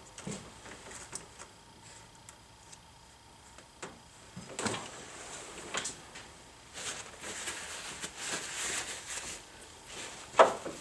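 Scattered clicks and light knocks of parts and tools being handled at an engine, with a stretch of rustling and scraping past the middle and one sharp knock near the end.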